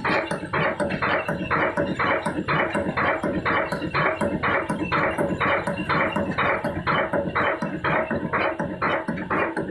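Old Ruston Hornsby single-cylinder stationary diesel engine running at slow speed, with a steady, even exhaust beat of about two pulses a second.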